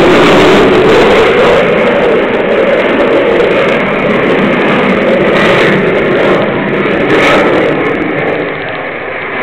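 Aircraft flying past at an airshow, a loud steady engine roar that fades over the last second or two.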